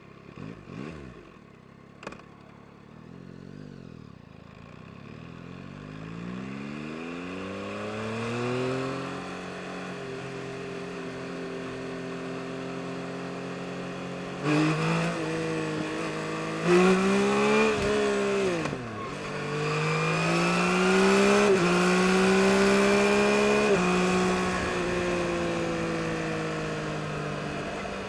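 2022 Yamaha MT-09 SP's inline three-cylinder engine pulling away and accelerating, its pitch climbing over the first several seconds. It then runs at speed, with several quick jumps and drops in pitch in the middle as the rider shifts and works the throttle. Wind rush builds as the speed rises.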